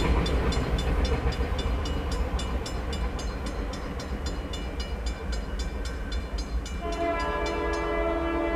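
Railroad crossing bell ringing about twice a second over the fading rumble of a passing freight train. About seven seconds in, the locomotive's multi-note horn starts a steady blast.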